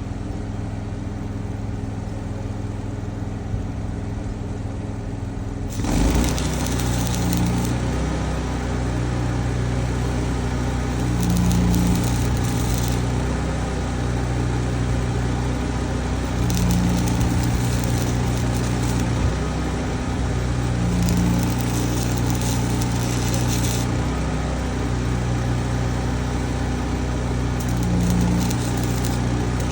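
An engine runs steadily. About six seconds in, stick welding starts: the arc gives a steady crackling hiss over the engine, and the engine note swells every few seconds as it takes the load.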